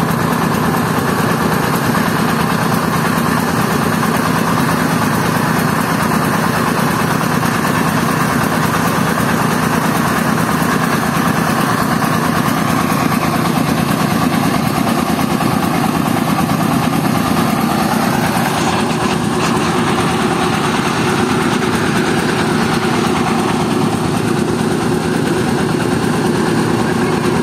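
Diesel engine of a mobile rice mill running steadily, driving the milling machinery as it mills rice.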